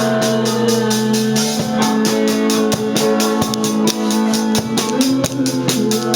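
Music with a drum kit keeping a steady beat over held tones.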